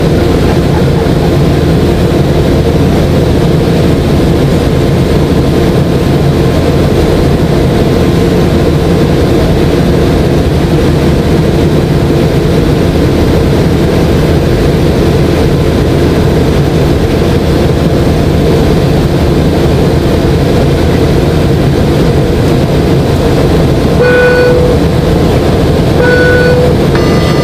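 Steady drone of a McDonnell Douglas MD-90's rear-mounted IAE V2500 turbofans and airflow, heard inside the passenger cabin in flight, with a constant low hum. Near the end a short two-tone cabin chime sounds twice, ahead of a cabin announcement.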